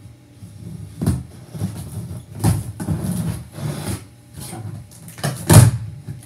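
A large cardboard shipping box being opened: taped flaps are pulled apart and the cardboard is scraped and rustled in a run of short noises, the loudest a little over five seconds in.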